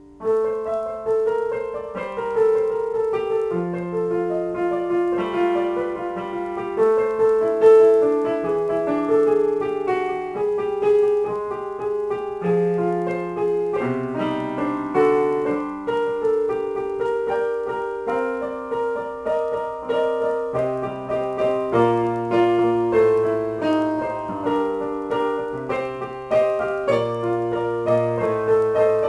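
Yamaha electronic keyboard played with a piano voice: an improvised melody over chords, with deeper bass notes coming in more often in the second half.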